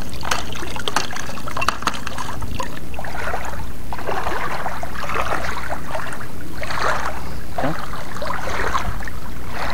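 Legs wading through shallow seawater, a swishing splash with each stride about every second, over a steady low rumble.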